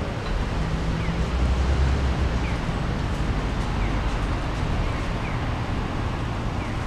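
Steady outdoor ambience of low rumble and hiss, with a faint short falling chirp repeating about every second and a half.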